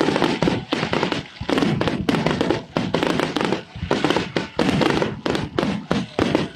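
Dense barrage of aerial firework shells bursting in quick succession, many bangs a second: the finale of a fireworks display.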